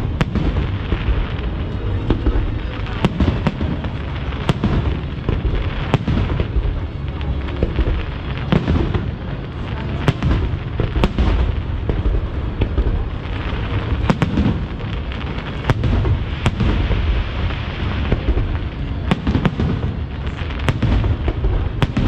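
Aerial firework shells bursting in quick succession: a string of sharp bangs over a continuous low rumble of explosions.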